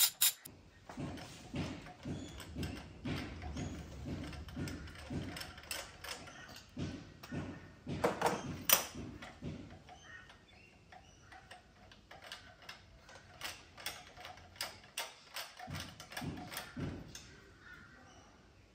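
Hand ratchet clicking in short, irregular runs as spark plugs are unscrewed from a Nissan QR25DE engine, with a couple of louder metallic knocks about eight to nine seconds in.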